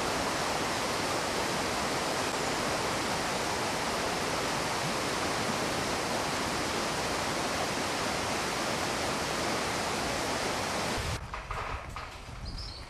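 Steady rushing of running water, like a stream in spate, which cuts off abruptly about eleven seconds in. A few faint knocks follow.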